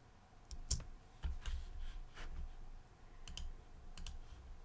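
Faint, scattered clicks of a computer mouse, with a few soft knocks of handling on the desk.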